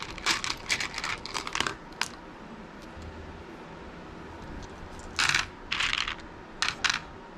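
Resin beads clicking against each other in a hand, then rattling briefly as a hand rummages through a basket of loose beads, with three short bursts of clatter about five seconds in.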